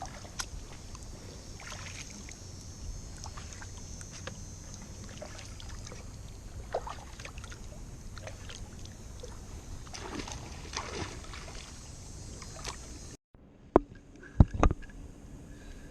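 Kayak on the water: a steady wash of water noise with scattered light drips and clicks. About thirteen seconds in the sound cuts off, then a few sharp knocks follow.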